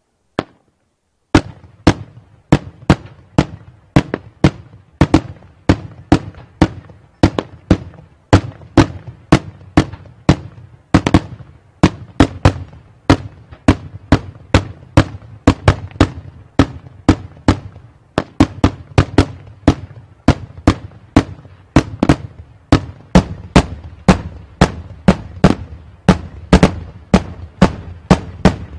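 Daytime aerial fireworks: a single bang just after the start, then from about a second and a half a steady, rapid string of loud bangs, about three a second, as shells burst into white smoke puffs overhead.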